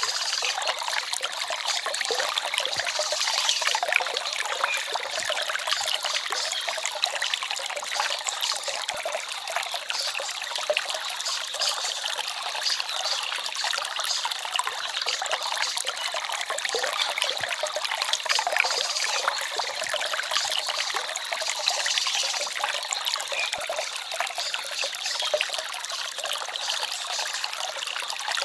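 A small stream trickling and babbling, a steady dense splashing that sits high, with almost no low rumble.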